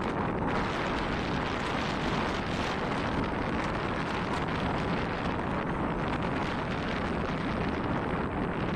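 Steady rush of wind and road noise from a moving motorbike-type two-wheeler, heard from the rider's seat with wind buffeting the microphone.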